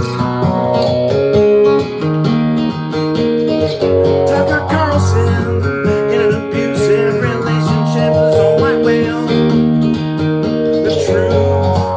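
Guitar music: strummed chords with held notes that change every second or two.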